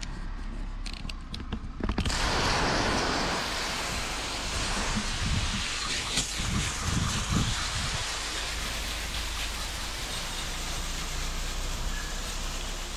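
Garden hose spray nozzle spraying a jet of water over fishing rods, a steady hiss that starts about two seconds in after a few handling clicks.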